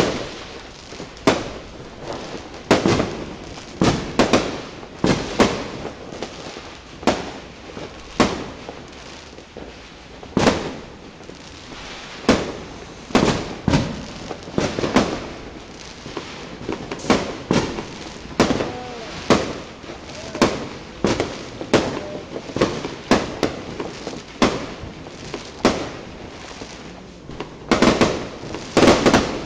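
Fireworks going off in a continuous string of sharp bangs and cracks, one or two a second, thickening into a rapid volley near the end.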